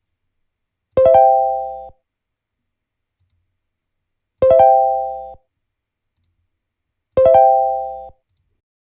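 Short electronic keyboard-like chime sound effect played back three times, identical each time, about three seconds apart: a bright attack settling into a held chord that fades out within a second.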